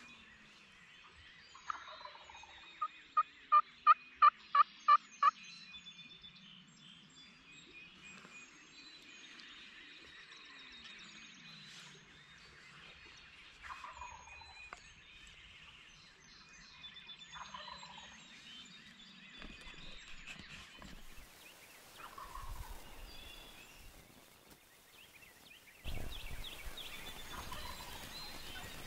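Wild turkey gobbling faintly several times, over the chirping of songbirds at dawn. A few seconds in, a much louder, close run of about eight evenly spaced call notes.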